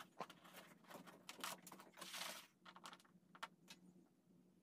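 Near silence with a few faint, scattered clicks and rustles: hands handling the wires and pressing a small plastic LED navigation light into its hole in an aluminum hull.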